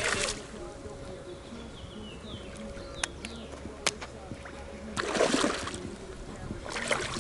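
A hooked bass thrashing and splashing at the water's surface: short splashes at the start, about five seconds in and again near the end. Between them a bird chirps faintly and there are two sharp clicks.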